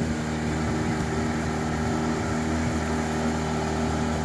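Small boat's engine running at a steady speed as the boat moves through the water, a constant-pitched hum.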